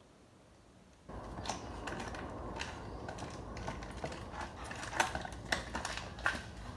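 Near silence for about a second, then a run of light clicks and crinkly crackles from handling plastic food packaging, with a few sharper crackles near the end.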